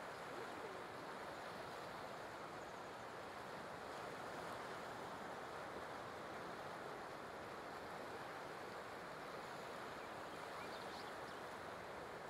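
Faint, steady wash of ocean surf on a beach, an even rushing noise with no distinct breaks or crashes.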